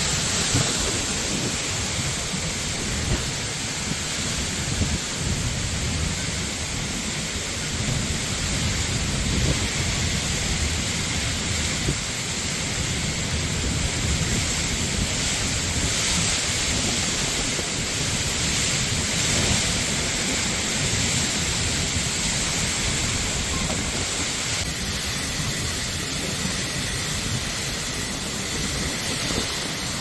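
Torrential rain pouring down steadily, with a low, uneven rumble underneath.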